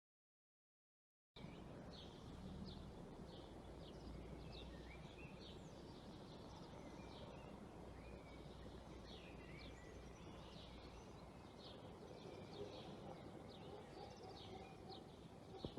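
Faint chorus of small birds chirping over a steady low background hiss, starting about a second and a half in after a silent gap.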